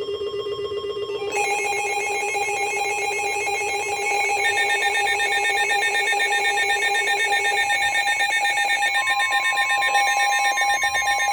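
Weather alert radio sounding its warning alarm for a severe thunderstorm warning: several steady electronic tones, layered and rapidly pulsing. More tones join about a second in and again around four seconds in.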